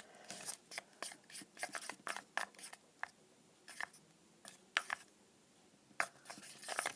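A thick toothpaste and body wash mixture being stirred, making faint, irregular clicks and scrapes.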